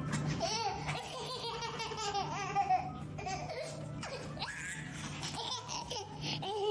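Baby laughing in a run of giggles and belly laughs.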